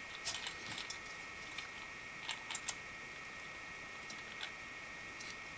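A handful of light clicks and taps as a Noctua NH-C14 CPU cooler is shifted and seated by hand on its metal mounting brackets, with a cluster of three clicks about two and a half seconds in, over a faint steady hiss.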